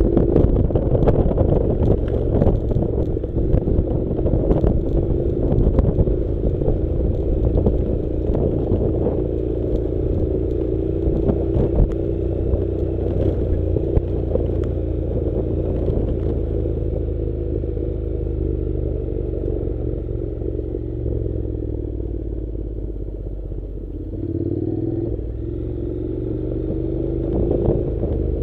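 Honda NC700's parallel-twin engine running at low speed on a rough dirt track, with frequent clatter and knocks from the bumpy surface. The knocks thin out after the first half, and the engine note dips and climbs again about three-quarters of the way through.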